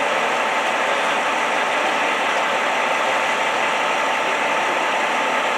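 A vehicle engine idling steadily, with a thin, steady whine over it.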